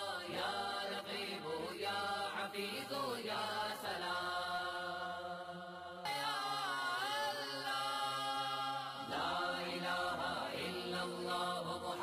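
Background vocal music: a voice chanting a slow melody that glides from note to note.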